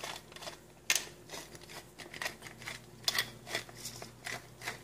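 Hand pepper mill grinding whole black peppercorns: a run of irregular crunching clicks, a few per second.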